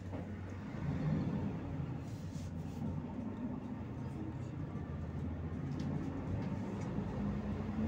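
Volgabus-5270.GH city bus running along the road, heard from inside the cabin: a steady low engine hum with road noise, the engine note rising about a second in and holding.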